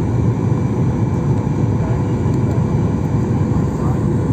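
Airliner cabin noise during the descent to landing: a steady low rumble of engines and airflow, with a faint steady hum above it.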